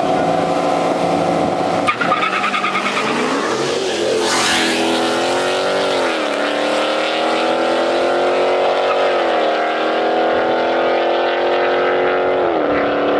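A Dodge Challenger and a Ford Mustang launching side by side in a drag race: engines running high, then a burst of tyre noise about four seconds in. The engines then pull hard through the gears, their pitch climbing and dropping sharply at three upshifts as the cars accelerate away.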